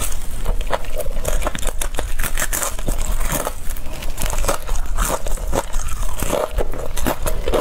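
Crispy fried chicken batter crunching and crackling as it is bitten and chewed close to the microphone, with many sharp crackles in quick succession.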